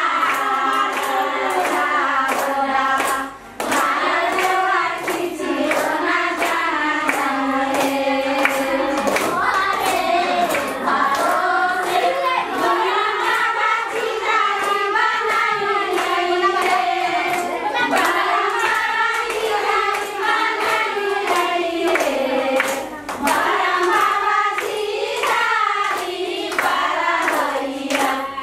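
A group of people singing together while clapping hands in rhythm, about two claps a second, with a brief break in the singing about three seconds in.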